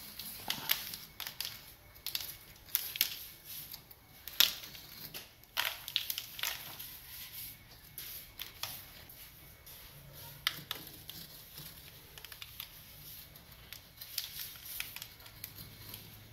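A small curved knife blade scraping and carving along the joint lines of cement faux stone, in short irregular gritty strokes, the loudest about four and a half seconds in.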